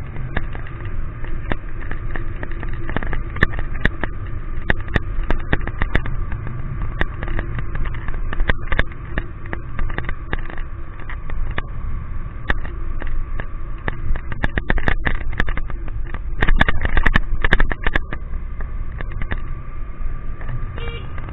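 Low rumble of wind and road noise from riding a motorcycle through rain, with a steady hum under it and many sharp clicks of raindrops hitting the camera. The clicks come thickest and loudest about two-thirds of the way through.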